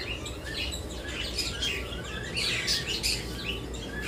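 Many small caged birds chirping at once, a dense overlapping chatter of short high chirps.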